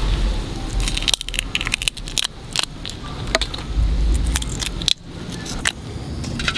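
Raw whole shrimp handled and pulled apart in a wicker basket: irregular crisp clicks and crackles of shells rubbing together and against the wicker, with a low rumble beneath at times.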